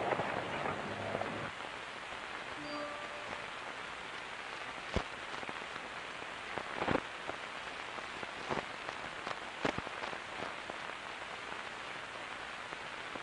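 Steady hiss with scattered clicks and crackles: the surface noise of an old film soundtrack, heard with no narration over it.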